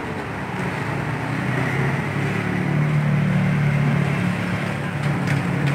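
Road traffic with a motor vehicle's engine running close by: a steady low hum over street noise, growing louder a couple of seconds in and easing slightly near the end.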